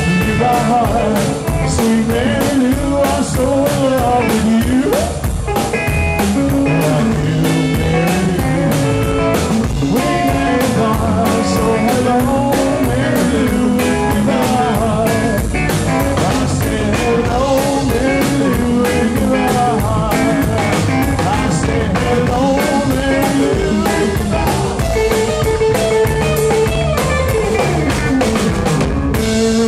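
Live rockabilly trio playing a song on electric guitar, drum kit and upright bass over a steady, driving drum beat. Near the end the drums stop and a final chord rings out.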